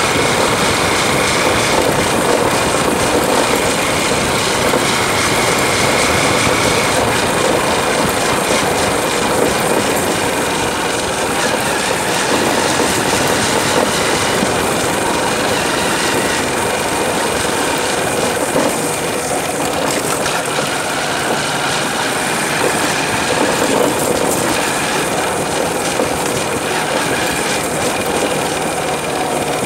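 Motorcycle engine running steadily while riding along a rough dirt road, under a constant rush of wind and road noise.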